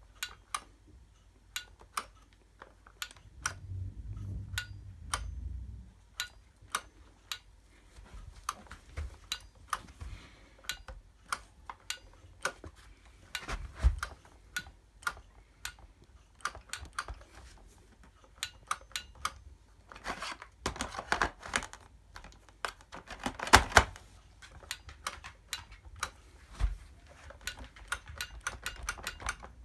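Repeated sharp clicks, one or two a second, as the on/off switch of a Gtech AirRAM K9 cordless vacuum is pressed over and over; the switch is faulty. A low rumble comes in for a couple of seconds near the start, and a burst of louder clatter comes about two-thirds of the way in.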